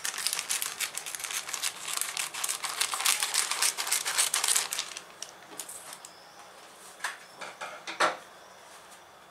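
Thin plastic film packaging crinkling and rustling as it is handled and cut open with scissors. It is dense for about five seconds, then quieter, with a few sharp crackles around seven and eight seconds in.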